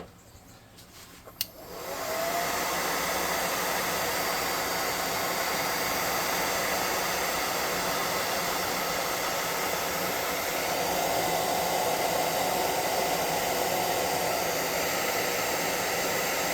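Hand-held hair dryer clicked on about a second and a half in, spinning up and then blowing steadily, used to dry the paint on a painted miniature base.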